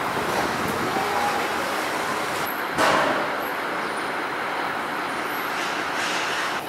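City street background: steady traffic noise, with one short loud burst of noise, like a vehicle's brake hiss, about three seconds in.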